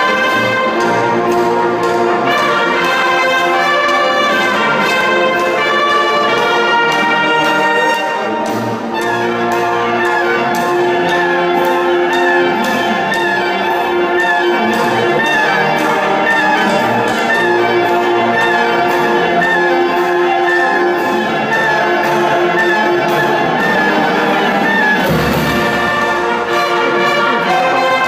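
Youth marching brass band playing a march: trumpets, trombones, saxophones and sousaphones over a steady bass-drum and percussion beat.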